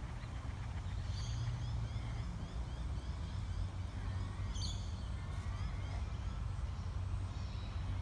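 Small birds chirping in quick, repeated short high notes, with one brighter call about four and a half seconds in, over a steady low rumble.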